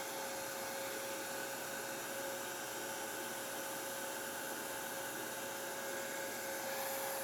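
Handheld hair dryer running on its low setting: a steady rush of air with a thin, even whine from its motor and fan.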